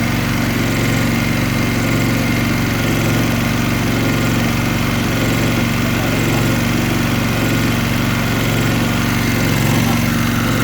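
Small petrol generator engine of about 3 kW running at a steady, unchanging speed.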